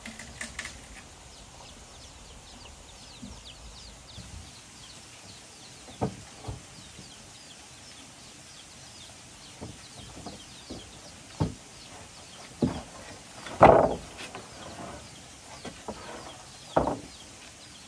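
A series of wooden knocks and thuds as sawn planks and thick green bamboo sections are shifted and set down on a concrete floor. The loudest and longest comes about three-quarters of the way through. Small birds chirp faintly throughout.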